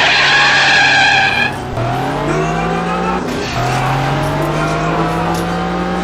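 Tyres squealing for about a second and a half, then a race car engine accelerating in two long runs. Its pitch climbs steadily through each run, with a brief drop between them like a gear change.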